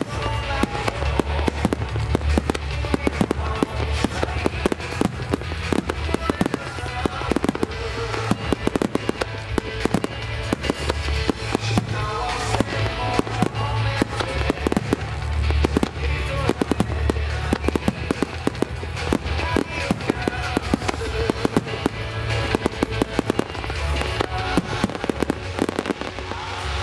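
Extra-large starmine fireworks: a rapid, continuous barrage of aerial shells bursting, many sharp bangs a second. Music plays underneath.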